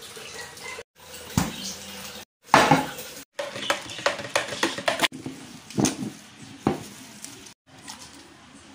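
Utensil clinking and knocking against a plastic pitcher while orange drink is stirred in it, a string of sharp clicks and knocks with some liquid stirring. The sound breaks off abruptly several times.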